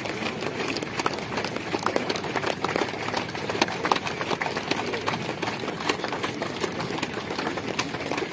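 A crowd applauding: a dense, even patter of many hands clapping.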